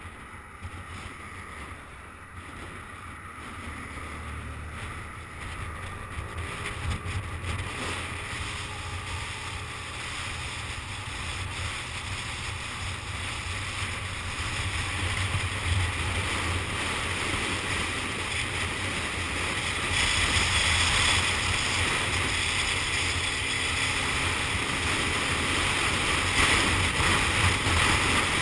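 Wind rushing over the microphone with the drone of a motor scooter riding along a road. It grows steadily louder, with a step up about two-thirds of the way through.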